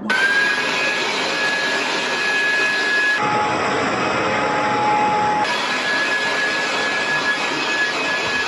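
Handheld leaf blower switched on: its motor whine rises briefly, then it runs steadily with a loud rush of air. A little past three seconds in the whine drops lower for about two seconds, then returns to its first pitch.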